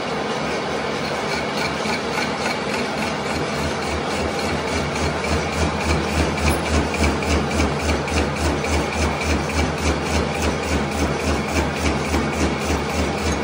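Manual lathe running as it turns a large metal disc, a steady machine drone with cutting noise. From about five seconds in, the sound pulses evenly about three times a second.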